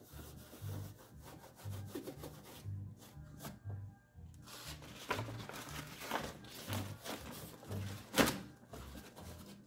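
A cloth rag rubbing over the bare painted sheet metal of a truck door, with scattered handling noises and one sharp knock about eight seconds in. Background music with a low, steady beat plays underneath.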